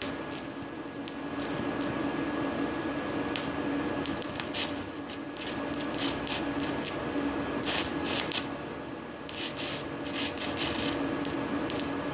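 Stick (MMA) welding arc crackling and hissing unevenly, with a steady buzz beneath. It is a 4 mm electrode burning on the grey 250A-SC inverter welder turned up to about 250 A, the setting needed before that rod would run.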